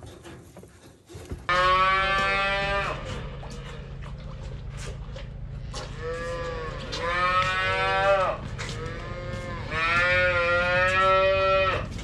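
Cow mooing: three long calls, the first about a second and a half in, the others near the middle and near the end. A steady low hum runs underneath.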